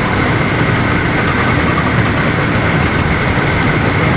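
Steady machine running noise, even in loudness, with a constant high whine held throughout.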